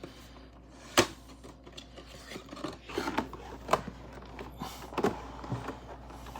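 A cardboard blind box being opened and its packaging handled: rubbing, scraping and rustling, with a sharp snap about a second in and scattered clicks after it.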